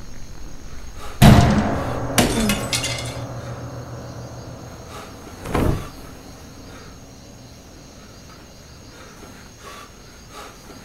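Glass shattering: a loud crash about a second in, followed by shards clattering and tinkling for about two seconds. A second, shorter burst of noise comes about four seconds later.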